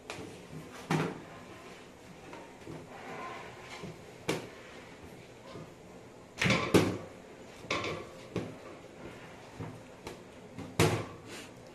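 Scattered knocks and thumps on a metal worktable as porotta dough is pinched off and rolled into balls by hand. The loudest come in a cluster about two-thirds of the way through, with another sharp knock near the end.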